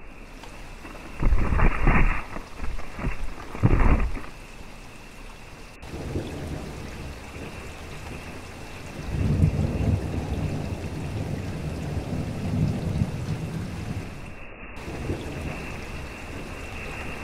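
Steady rain falling on forest foliage. Two short, loud blasts of noise come early on, and a longer low rumble follows in the second half.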